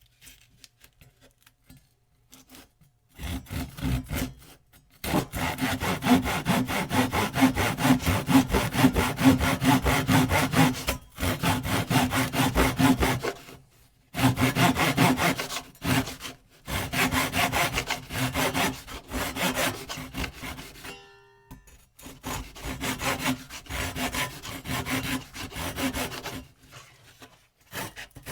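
Hand saw cutting: a few light starting strokes, then rapid, steady back-and-forth strokes in long runs broken by brief pauses.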